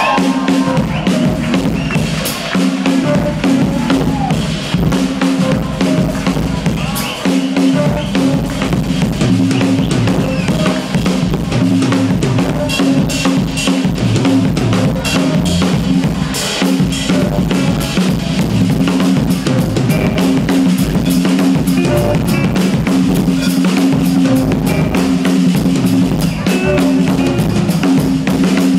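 Live drum solo on a full drum kit: bass drum, snare and toms struck in a fast, unbroken stream of strokes.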